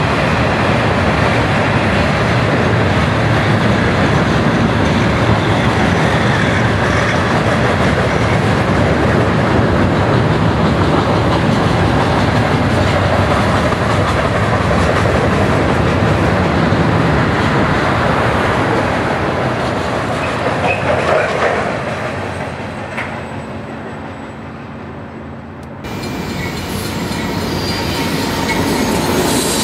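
Loaded ballast hopper cars rolling over a steel railway bridge: a loud, steady rumble and clatter of wheels on rail that fades away over several seconds. Near the end the sound changes abruptly to a second freight train approaching and growing louder.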